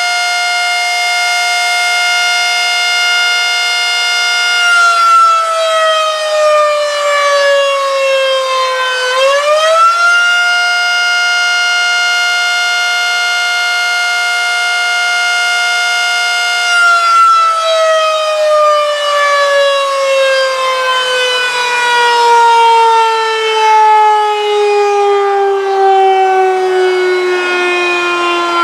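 Federal Signal Model 5 fire siren sounding its weekly test signal. It holds a steady high tone, dips and climbs back once, holds again, then winds down in a long slow fall in pitch.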